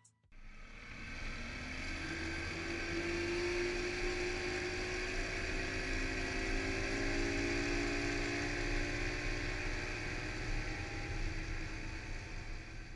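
Mercury outboard motor driving a small boat at speed, with the hiss of wake and spray. It grows louder and rises slightly in pitch over the first couple of seconds as it comes up to speed, then runs steadily.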